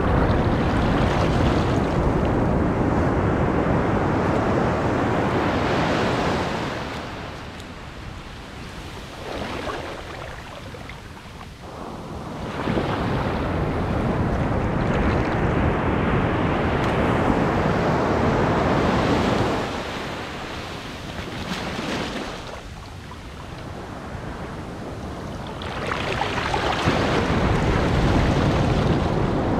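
Shallow ocean surf washing in around bare legs and draining back over sand, close to the water. It comes as a loud rushing in three long surges with quieter lulls between.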